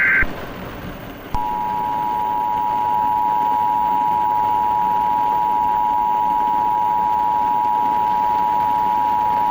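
Emergency Alert System attention signal, the two-tone alarm, sounding as one steady unbroken chord for about eight seconds from just over a second in. It comes right after the last burst of the warbling SAME data header and announces a tornado warning.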